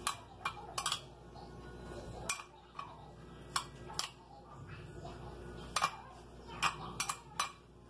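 A spoon clinking against a glass bowl while stirring chopped tomato and onion: about a dozen sharp, irregular clinks.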